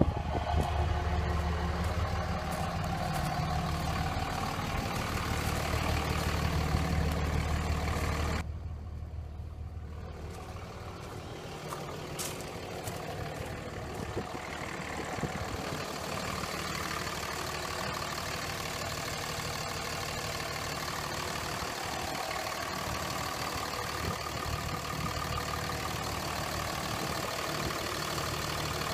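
A 2003 Dodge Ram 3500's 5.9-litre Cummins turbo diesel inline-six idling steadily, warmed up to normal operating temperature. It is a little quieter from about eight seconds in.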